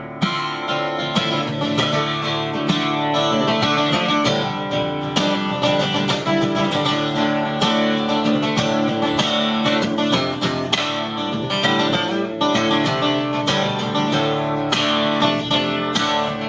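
Live acoustic guitar strumming an instrumental break in a country-folk song, with no vocals.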